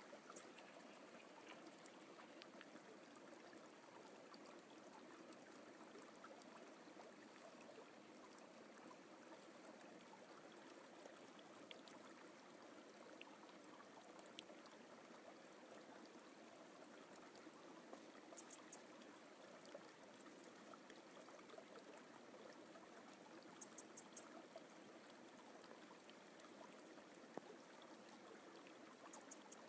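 Faint steady rush of a forest stream, with a few faint high ticks about two-thirds of the way through.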